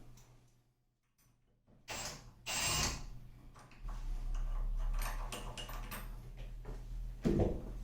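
Clicks, scrapes and knocks of tools and metal hardware being handled, with a low steady hum in the middle and a sharper knock near the end.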